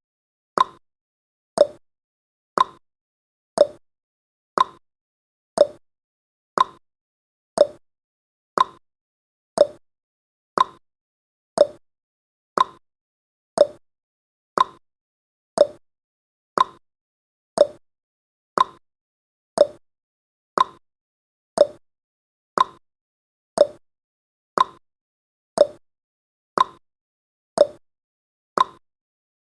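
Clock-tick sound effect of a countdown timer: short, sharp ticks, evenly spaced about once a second, each dying away quickly.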